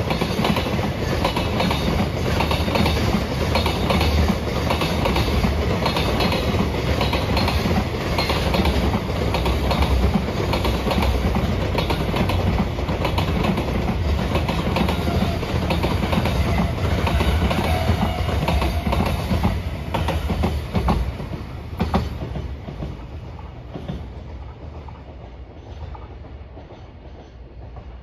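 A long freight train of container wagons rolling past, wheels clacking in a steady rhythm over the rail joints. The sound fades away over the last several seconds as the tail of the train goes by.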